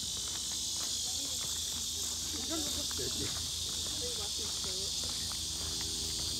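A steady, high-pitched chorus of cicadas buzzing in the summer heat.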